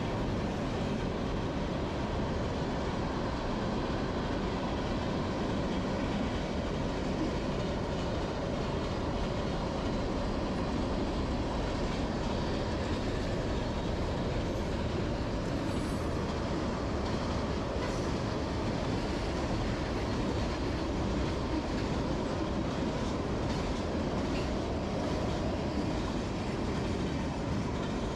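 Freight train of hopper and tank cars rolling across a railroad bridge: a steady, continuous rumble that holds without a break.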